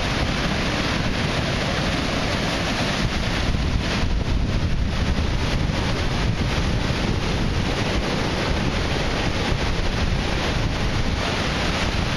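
Heavy storm surf breaking and churning around pier pilings, with strong tropical-storm wind buffeting the microphone in a steady, continuous rush.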